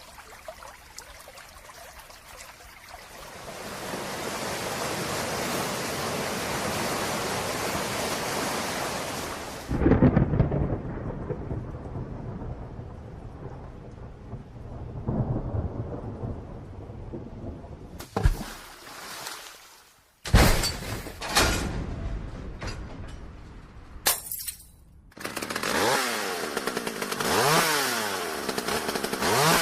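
A run of sound effects. First a steady rain-like hiss, then heavy low rumbles starting suddenly about a third of the way in, then several sharp sudden cracks. Near the end comes an engine-like whine that repeatedly rises and falls in pitch.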